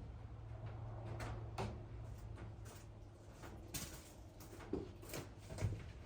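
A low steady hum that fades after about two seconds, with scattered faint knocks and clicks, a few louder ones in the second half.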